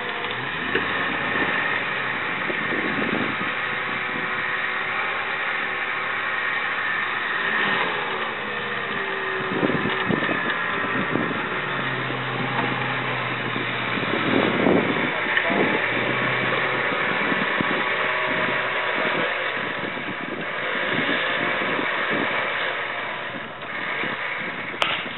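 Electric winch on a lifted Jeep Wrangler TJ's front bumper reeling in with a steady whine, pulling the Jeep slowly through mud with its engine running, and voices in the background.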